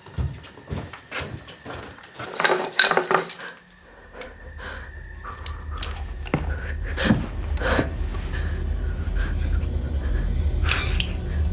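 A run of clattering knocks and clicks, like hard objects being handled, then a steady low rumble sets in about four seconds in, with a few more knocks over it.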